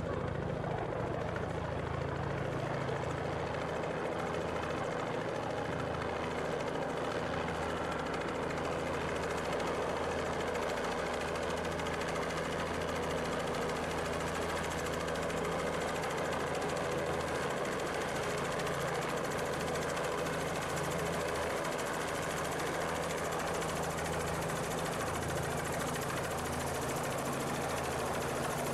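Light two-blade helicopter flying low as it comes in to land, its rotor and engine running steadily.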